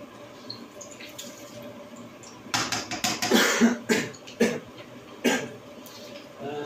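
Breadcrumbed fish frying in a pan of hot oil with a faint steady sizzle, broken about two and a half seconds in by a run of several coughs over about three seconds.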